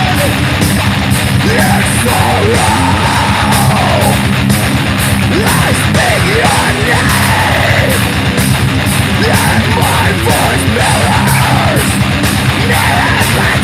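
Heavy metal with high-gain distorted electric guitar riffing from an EVH Wolfgang Standard through its Wolfgang humbucker, over drums, with yelled and sung vocals.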